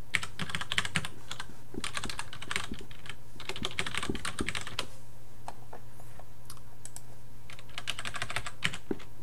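Typing on a computer keyboard: several quick runs of keystrokes with pauses and a few single clicks between them, over a low steady hum.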